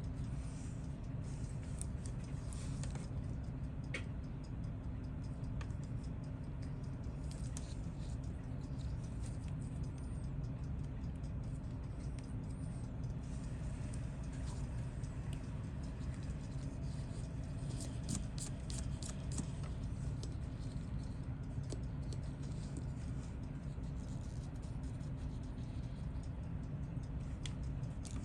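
Scattered faint small clicks and scratches of a watch and small tools being handled, over a steady low hum.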